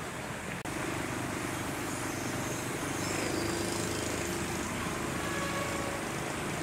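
Steady outdoor background noise with a low droning hum.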